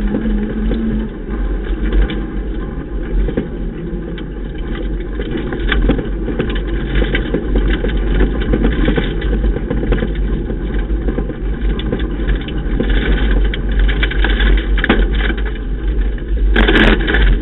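Ford Ka rally car driven hard on a gravel forest stage, heard from inside the cabin: the engine runs under load over a steady rush of tyre and road noise, with a constant scatter of small knocks from gravel striking the car. The noise grows louder about a second before the end.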